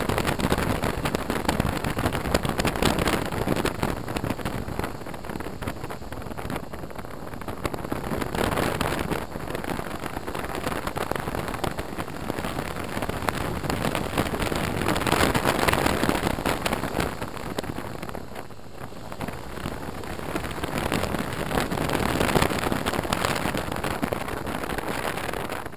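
Rush of riding wind on a helmet-mounted camera on a BMW R1200RT motorcycle, mixed with the bike running, swelling and easing several times.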